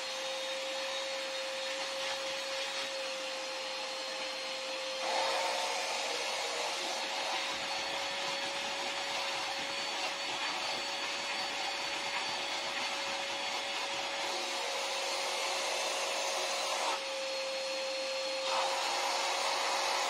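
Koblenz WD-2.5 L 2.5-gallon wet/dry shop vacuum running, loud, a steady motor whine over a rush of air through the hose and crevice tool. The air rush turns louder and rougher about five seconds in, eases briefly near the end, then rises again.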